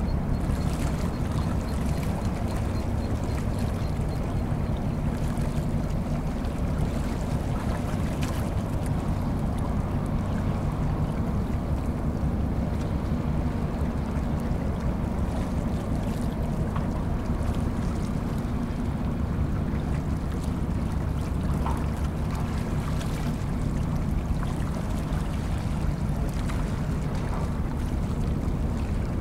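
Diesel engines of two harbour tugboats (4,400 PS and 4,000 PS) running steadily, a low, even drone.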